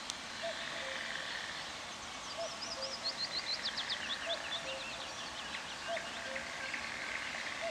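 Birdsong: a common cuckoo calling its low two-note 'cuck-oo' again and again, while a songbird sings a fast run of high notes that falls in pitch in the middle.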